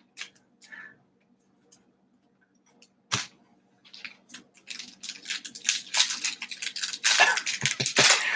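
A foil trading-card pack wrapper being handled and torn open: a few light crinkles and a sharp click about three seconds in, then dense crackling and crinkling of the foil over the last four seconds.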